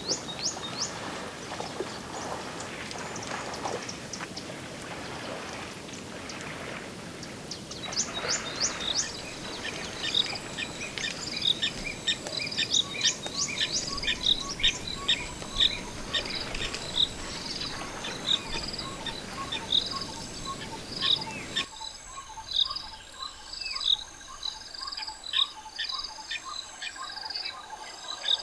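Bush birds calling in quick, repeated chirps and insects trilling, over a steady wash of noise from the shallow river and elephants wading through it. About three quarters of the way through the water noise cuts off abruptly, leaving the birds and insects clearer.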